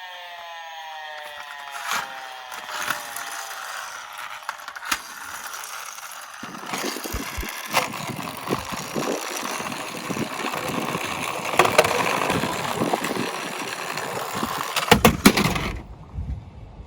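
Tomica die-cast toy cars rolling and rattling along a slope track, with scattered clicks and knocks. The rattling grows louder about six seconds in and ends in a quick burst of loud clattering knocks near the end before cutting off.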